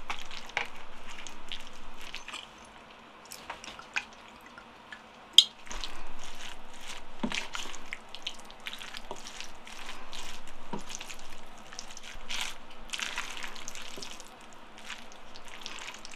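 Close-miked eating of jjajang (black bean sauce) food: chewing and mixing, with scattered clicks of utensils against the bowl and one sharp click about five and a half seconds in.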